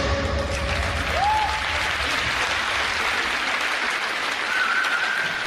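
Audience applauding in a sports hall as the routine's music stops, with a couple of brief high calls from the crowd over the clapping.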